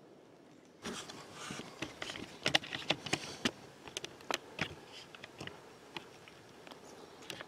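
Close handling noise: an irregular run of sharp clicks, knocks and rustles as the camera is moved and handled. It starts suddenly about a second in.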